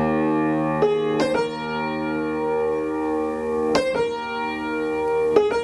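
A piatgo, a piano modified for traditional Korean music, rings with long sustained notes, with a few fresh notes struck over them. The held notes are played to imitate the sound of a danso or daegeum bamboo flute.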